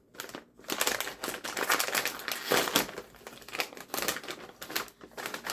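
Foil bag of Deep River kettle chips crinkling and crackling as it is handled.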